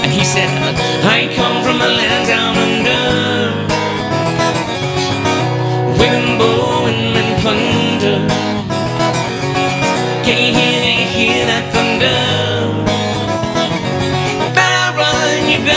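Acoustic guitar played with a man singing along, a live solo song.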